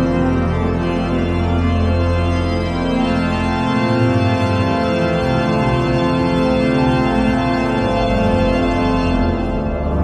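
Organ music: full, sustained chords over a deep bass note. The bass fades about four seconds in while the chords go on.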